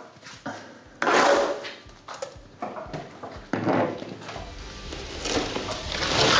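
Plastering trowel swiping wet clay plaster onto a ceiling-and-wall corner: several scraping strokes, each under a second, a second or two apart.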